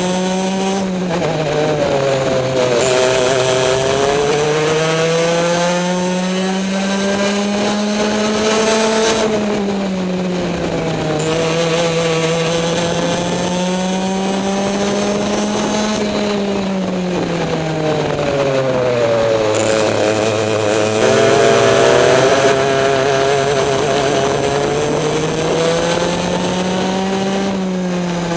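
Onboard sound of an Easykart's two-stroke racing kart engine at race pace. Its pitch climbs steadily for several seconds on each straight and drops sharply several times as the kart brakes into corners.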